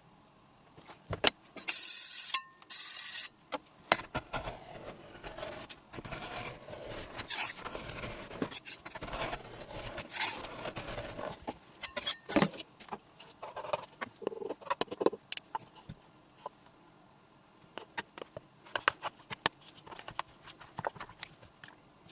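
Metal spatulas tapping, chopping and scraping on a steel ice-cream pan, in irregular sharp clicks and scrapes, with a loud harsh scraping stretch about two seconds in.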